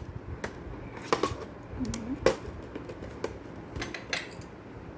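Small metal parts of a Mechanix construction kit clicking and clinking as a nut is handled and fitted onto a bolt: several separate light clicks at uneven intervals.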